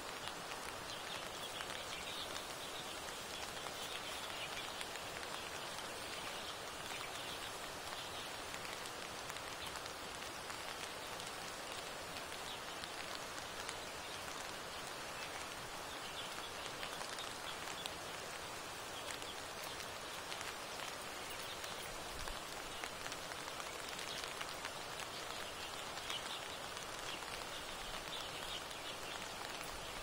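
Steady, even hiss and patter of water, with no pauses.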